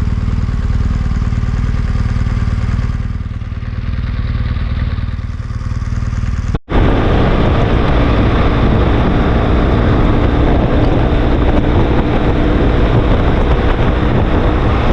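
Vehicle driving on the highway: steady low engine and road rumble. About six and a half seconds in it cuts off abruptly and comes back as louder road and wind noise.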